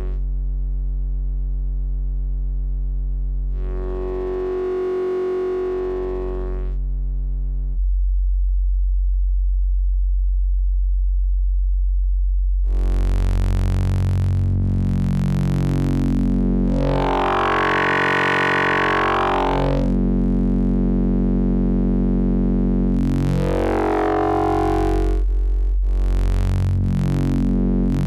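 Zebra 2 software synthesizer holding one low note while its oscillator's wave-shaping setting is turned, so the timbre keeps changing. About eight seconds in it thins to a bare low tone. Around thirteen seconds in it turns bright and buzzy, its overtones sweeping up and down.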